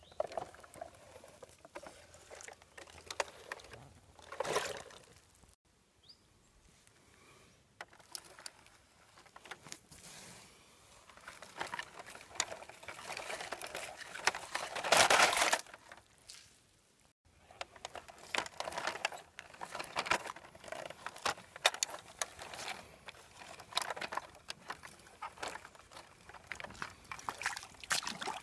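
Shallow stream water sloshing and splashing as a plastic toy tractor is pushed through it by hand, mixed with irregular clicks and scraping as its rubber tyres roll over soil and leaves. A louder rush about halfway through, and the sound drops out briefly twice.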